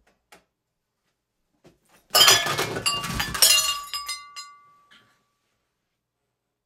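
China dishes, bowls and glasses crashing off a table and breaking, in two loud crashes about a second apart, with shards clinking and ringing as they settle.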